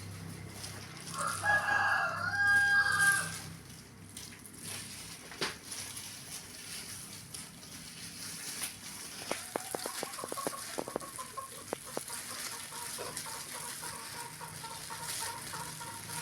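A rooster crowing once, a loud call of about two seconds, followed by scattered clicks and knocks.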